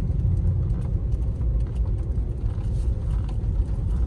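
Car driving slowly, a steady low rumble of engine and road noise heard from inside the cabin, with a few faint light ticks.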